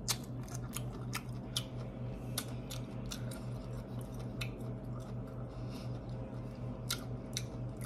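Close-up chewing of cooked broccolini: irregular crisp crunches and wet mouth clicks, over a steady low hum.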